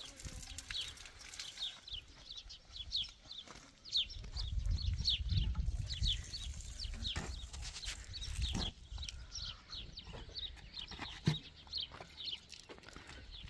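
Birds chirping continuously: many short, high chirps that slide downward, several a second, over a low rumble.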